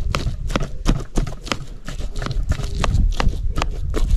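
Soft corn groundbait being roughly mashed: a run of irregular knocks, about three a second.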